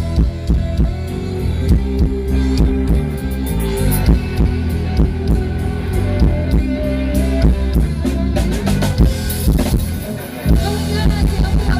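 Live rock band playing, with a drum kit beating steadily under electric guitar and bass and no vocals; the band drops out briefly just after ten seconds and then comes back in.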